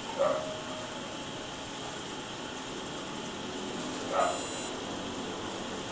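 A dog barking twice, short single barks about four seconds apart.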